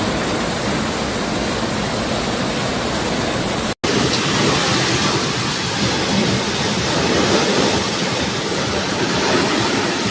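Steady rushing of water, an even loud noise with no distinct events, broken by a momentary gap nearly four seconds in.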